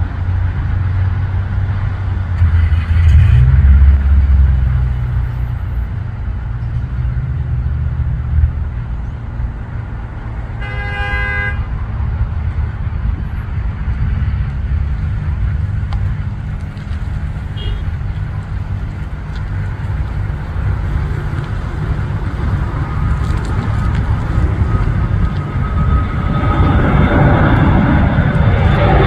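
Steady road-traffic rumble, swelling a few seconds in as a vehicle passes close; about eleven seconds in, a horn toots once for about a second. Near the end the rear-mounted jet engines of a business jet climbing out after takeoff swell into the loudest sound, passing overhead.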